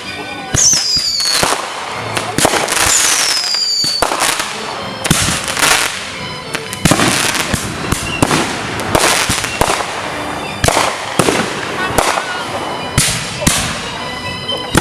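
Consumer fireworks going off in quick succession: repeated sharp bangs and crackling, with two falling whistles in the first four seconds.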